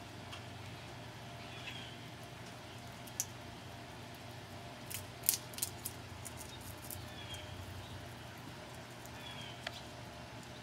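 Fox squirrel gnawing a peanut shell: scattered sharp clicks and cracks, with a quick cluster of louder cracks about five seconds in.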